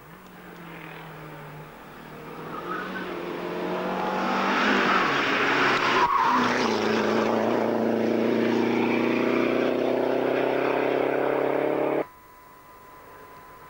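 Rally car engine at speed on a tarmac special stage, faint at first and growing loud as the car approaches and passes. There is a brief break in the sound about six seconds in, and it cuts off abruptly near the end.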